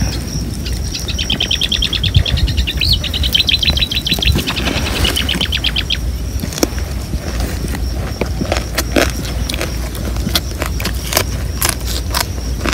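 A bird sings a rapid trill of high chirps for about five seconds over a steady low rumble of wind on the microphone. After that come scattered sharp clicks and smacks of eating by hand.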